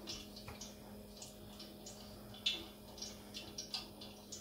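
Fingers pressing and pinching the water-dampened edges of samosa pastry shut, making soft, irregular sticky clicks and ticks over a faint steady hum.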